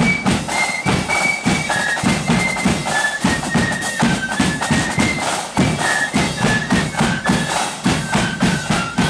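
Marching flute band playing a tune in unison on high-pitched flutes over a steady marching beat of drums.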